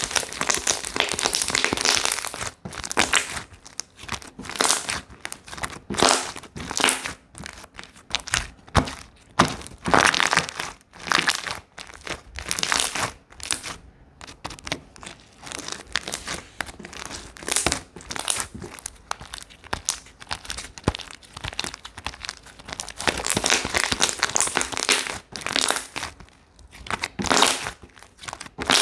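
Slime being squished, pressed and stretched by hand, crackling and crinkling in irregular bursts, several a second.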